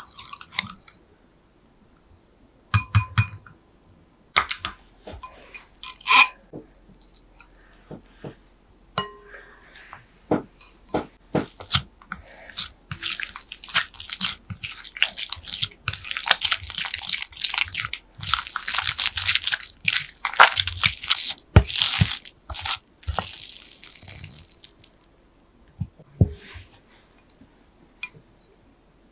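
Silicone spatula mashing and stirring beaten egg into stiff cream-puff dough in a glass bowl: wet, crackly squelching that runs thick through the middle, with a few sharp knocks in the first few seconds.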